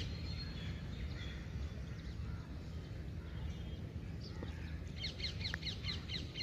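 Birds chirping over a steady low background hum, with a quick run of short, high repeated notes, about seven a second, near the end.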